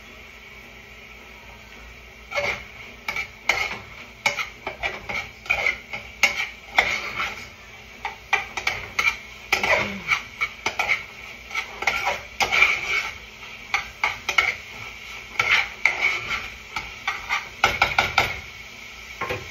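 A cooking utensil stirring food in a saucepan on an electric stove, scraping and knocking against the pot in quick, irregular strokes. The stirring starts about two seconds in and keeps going until just before the end.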